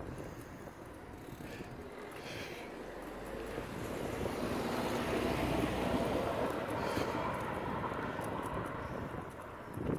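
Riding noise picked up by a bike-mounted phone's microphone: wind buffeting the microphone over tyre and road rumble, with small clicks and rattles. It swells through the middle and drops off suddenly at the very end.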